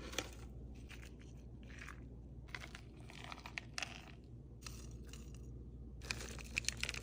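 Faint, scattered scraping and crinkling handling sounds, in several short bursts, as a powdered supplement is scooped from its package and sprinkled onto dog food.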